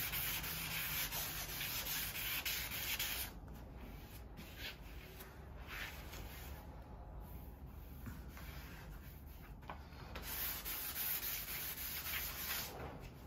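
400-grit sandpaper on a hand sanding block rubbing back a primer coat, a scratchy hiss of back-and-forth strokes. It is strong for the first three seconds, lighter and patchier in the middle, and strong again near the end. This is the primer being flatted smooth before painting.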